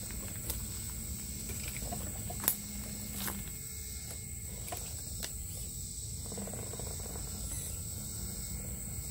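RC scale crawler truck working slowly over rocks and a log. A low motor hum runs for the first three seconds or so, with scattered clicks and knocks of tyres and chassis on rock and wood, the sharpest about two and a half seconds in. A steady thin high whine sits under it throughout.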